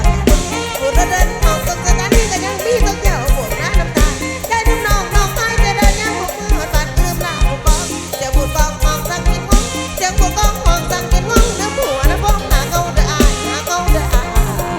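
Mor lam band playing a fast, upbeat toei dance number, with a heavy, pounding bass and drum beat under a wavering melody line.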